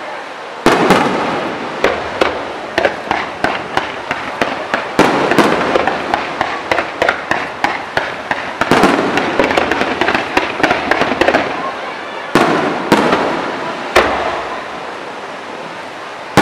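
Fireworks display: aerial shells bursting with sharp bangs amid rapid crackling, several cracks a second. Firing starts with a loud burst about a second in, and heavier volleys come about five and nine seconds in and again near twelve and fourteen seconds.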